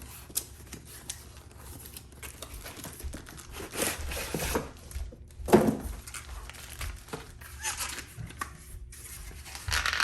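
Tool packaging being cut open with a Milwaukee Fastback folding utility knife and torn apart: irregular tearing, scraping and crinkling, loudest about halfway through.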